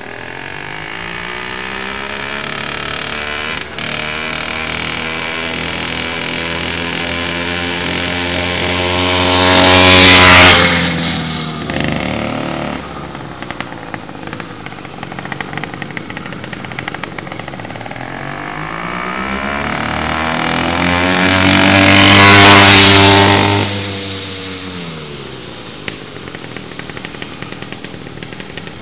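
A motorized bicycle's small two-stroke engine kit (66cc/80cc) running at speed as the bike passes by twice, about ten seconds in and again near twenty-two seconds. Each pass swells to loud, then the pitch drops as it pulls away.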